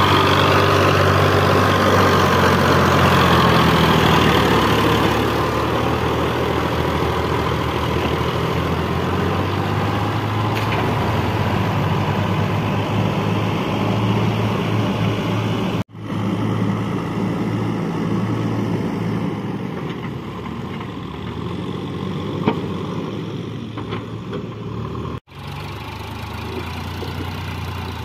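Diesel engines running steadily: a Sonalika tractor hauling a loaded trolley, then a JCB backhoe loader. The sound drops out abruptly twice where clips are joined, and a single sharp knock sounds near the end.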